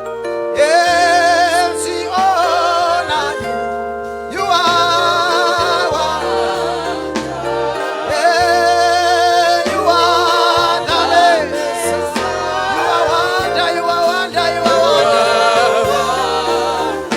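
Gospel worship music: singers with strong vibrato over a band accompaniment with a steady bass line.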